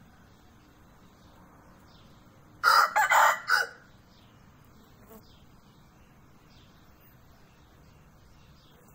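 Aseel rooster crowing once, a loud crow about a second long a few seconds in.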